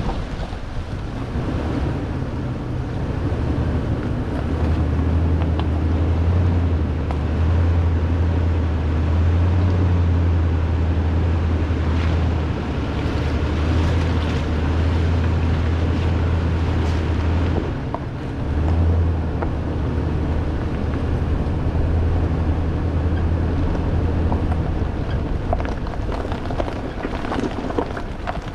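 2018 Toyota Tundra's V8 engine running with a low, steady drone as the truck crawls along a rough off-road trail, under a broad rushing noise. The drone drops away briefly a little past halfway, then comes back.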